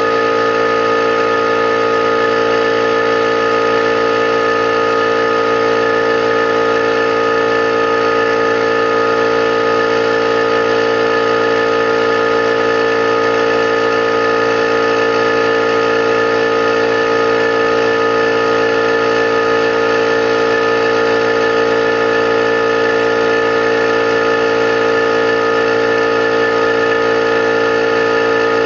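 Electric air compressor running steadily, pumping air into its 21-gallon tank: a loud, unchanging motor-and-pump drone with a steady whine.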